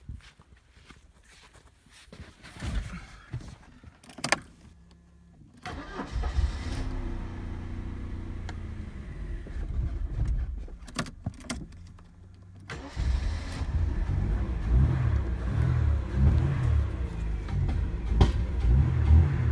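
Mercedes W124 230E's four-cylinder petrol engine being started: a few clicks, then about seven seconds of steady cranking, after which the engine catches and runs louder and unevenly. The long crank before it fires is the hard starting that the owner is chasing in its KE-Jetronic fuel injection.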